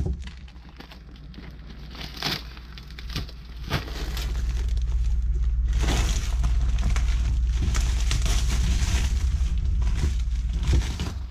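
Plastic mailer bag and shrink wrap crinkling and rustling as the bag is pulled off a cardboard box: a few sharp crackles at first, then steady, louder crinkling from about five seconds in until shortly before the end.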